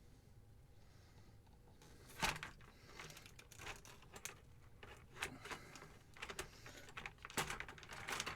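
Irregular rustling, scraping and clicking of hands twisting and pulling a stiff rubber coolant hose off a PC water cooler's fitting. The sharpest knocks come about two seconds in and near the end.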